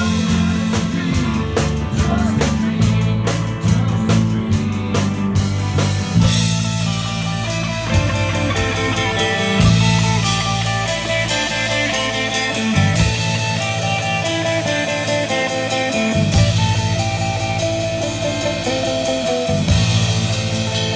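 A five-piece band playing live, with guitar and drum kit.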